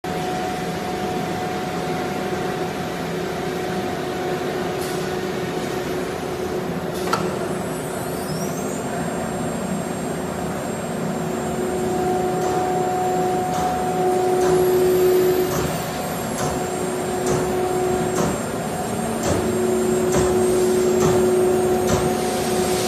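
CNC router spindle running with a steady whining hum as it cuts a wooden board. A string of sharp clicks comes in about halfway through.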